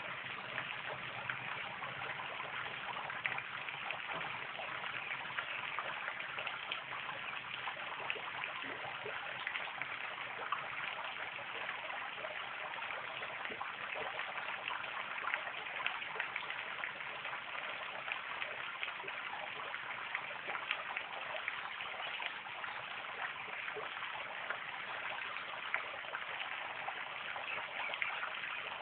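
Small garden fountain jet splashing steadily, its water pattering back down in a fine, even crackle of drops.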